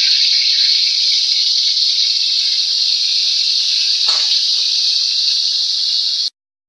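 Turmeric-coated potato pieces frying in hot mustard oil in a steel kadai: a loud, steady sizzling hiss, with a brief louder crackle about four seconds in. It cuts off suddenly near the end.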